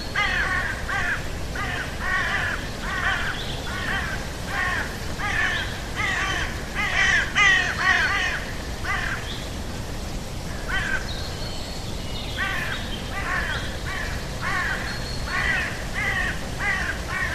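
A bird calling over and over in short repeated calls, about two a second, with a brief pause about halfway through.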